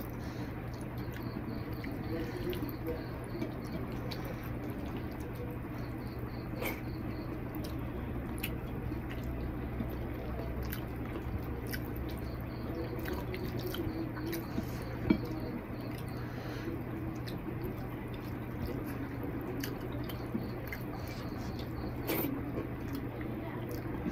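Wet squishing as fingers mash and mix rice with curry gravy on a plate, with small clicks and chewing, over a steady low hum. One sharper click about fifteen seconds in.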